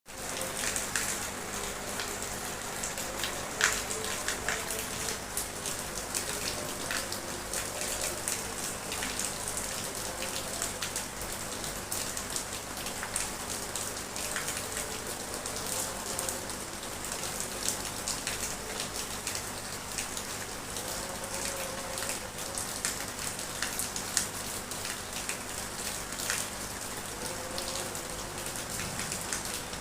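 Light drizzling rain falling steadily, a constant hiss with many individual drops ticking sharply on hard surfaces.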